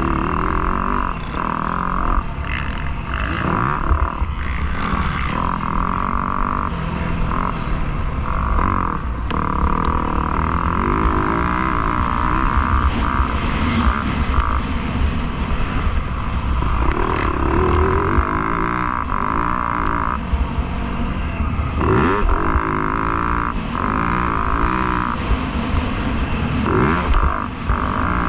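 Yamaha YZ250F four-stroke single-cylinder dirt bike engine running hard on a motocross track. The revs rise and fall repeatedly, with short breaks for shifts and throttle chops every few seconds.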